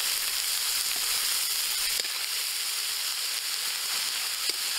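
Chopped onions sizzling steadily in hot mustard oil in a metal karahi, with a few faint clicks of the metal spatula stirring them.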